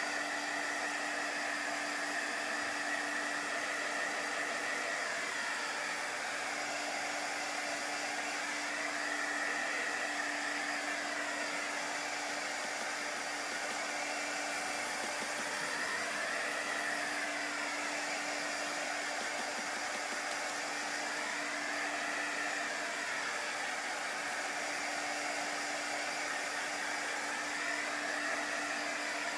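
Handheld heat tool running steadily, its fan blowing hot air to dry a fresh coat of black paint on a wooden board. It gives a constant hum and rushing air, and its whine rises and falls gently in pitch every several seconds.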